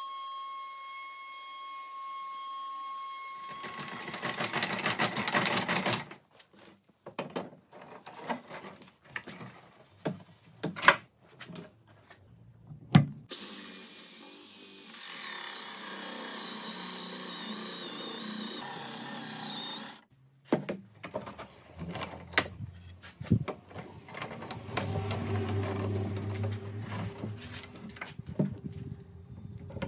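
Table router whining steadily with a roundover bit, then cutting into the edge of an oak board about four seconds in. After a run of knocks and taps, an electric drill bores into the oak, its pitch wavering under load, followed by more knocks and a lower, steadier running sound near the end.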